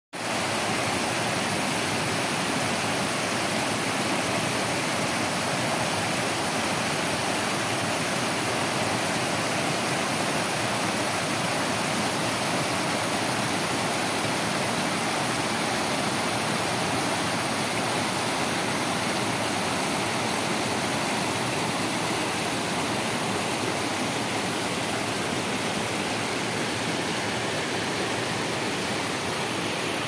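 Water pouring over the steps of a low concrete weir in a stream: a steady, even rush of falling water.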